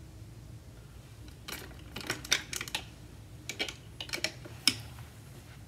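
Sunglasses clicking and tapping against an acrylic rotating sunglasses display as they are set in place, with the plastic frames and hinges clicking. The light clicks come in quick clusters from about a second and a half in until nearly five seconds in.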